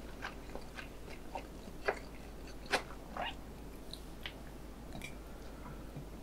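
Close-miked chewing of spicy stir-fried ramen noodles: soft wet mouth smacks and clicks, with a few sharper clicks about two and three seconds in.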